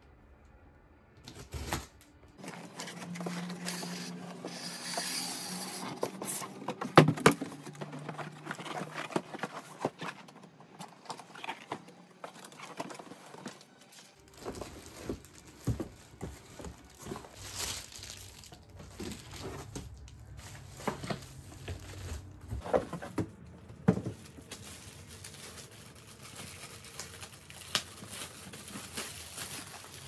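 Unboxing a cordless stick vacuum: plastic wrap and cardboard rustling and crinkling as the parts are taken out, with scattered knocks and clicks, the loudest a couple of sharp knocks about seven seconds in.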